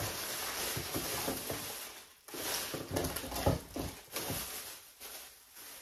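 Plastic bags rustling and crinkling as decorations are handled and rummaged through in a storage bin, with a brief pause a little over two seconds in.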